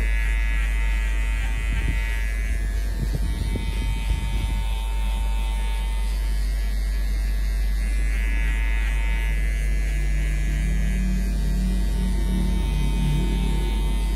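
Cordless electric hair clipper running steadily while cutting short hair at the nape for a fade.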